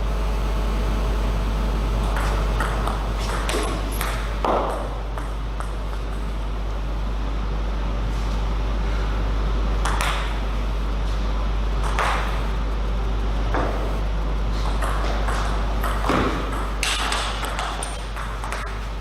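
Table tennis ball clicking sharply off bats and the table, in a few quick runs and single hits, over a steady low hum.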